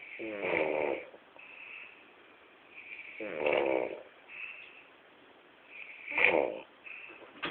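A man snoring in his sleep after a night of drinking: three loud snores about three seconds apart, with a fainter hiss of breath between them.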